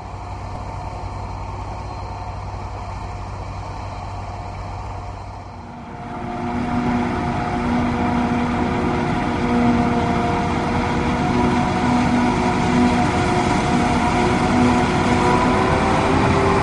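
Heavy diesel harvest machinery running steadily, a low hum at first, then growing louder from about six seconds in with a steady engine tone as a machine comes closer.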